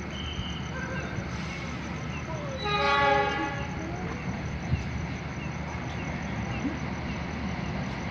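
Diesel locomotive horn: one blast about a second long, about three seconds in, over the steady low rumble of a train approaching on the next track.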